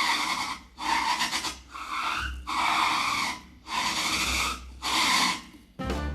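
A grooved, ridged object rubbed in strokes across a wooden surface as a foley effect: about six rasping strokes, one a second, each with a strong resonant, almost vocal colour. Near the end a sharp hit with brief ringing.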